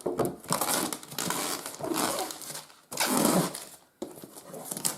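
Plastic shrink-wrap being torn and crinkled off a new product box, in irregular rustling bursts, loudest about three seconds in.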